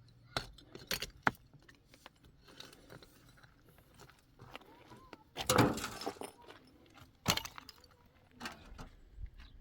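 Scattered sharp knocks and clinks of objects being handled, with a louder, longer clatter about halfway through.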